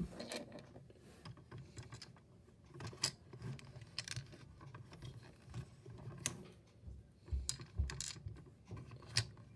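Scattered light clicks and taps of hard plastic Mega Bloks building-toy pieces being handled, a clear plastic door on a small toy cabinet being worked, with two dull knocks past the middle.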